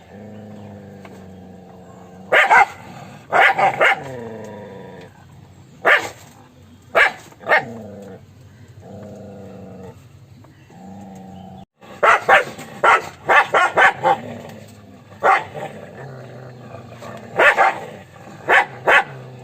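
A dog barking in short, loud bursts, singly and in pairs, with a quick run of barks about twelve seconds in. A low steady hum sounds between the barks.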